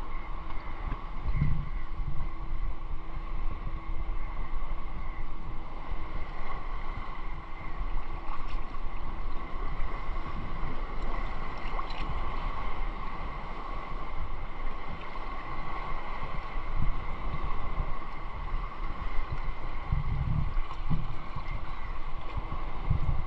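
Shallow sea water sloshing and lapping around a wading person, with wind buffeting the microphone in low rumbles and a steady hum underneath.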